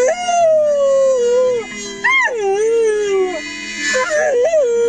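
Australian Shepherd puppy howling along to a harmonica: two long howls that jump up and then slowly sink in pitch, then a few short wavering cries about four seconds in, over steady held harmonica chords.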